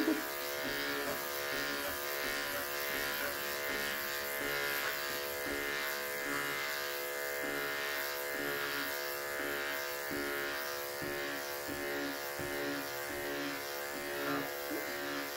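Corded electric clippers humming steadily as they are pushed across short-pile faux fur to shave it down. The blades are barely taking any fur off, the sign that the piece is nearly finished shaving.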